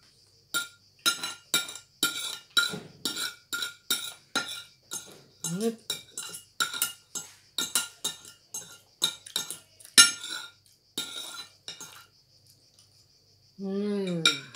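Metal spoon and fork clinking and scraping against a ceramic plate: a quick run of sharp, ringing clinks, about two or three a second, that stops about twelve seconds in. A short voice sound comes near the end.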